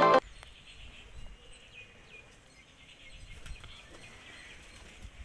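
Guitar music cuts off just after the start. Faint outdoor ambience follows, with a low rumble of wind on the microphone and a few faint, short bird chirps.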